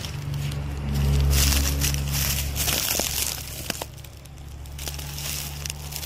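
Crinkly plastic of a hangable dehumidifier bag rustling and crackling as it is handled, with a few sharp clicks and a low steady hum underneath.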